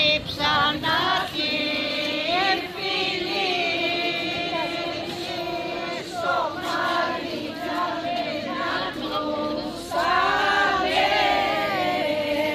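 A group of women and children singing a traditional Greek Palm Sunday dance song together, voices only with no clapping or instruments, in long held phrases that swell louder about ten seconds in.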